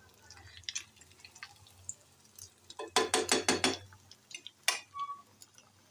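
Kababs frying in hot oil with a faint sizzle, while a metal spatula scrapes and clinks against the frying pan. The loudest part is a quick run of about six ringing clinks about three seconds in.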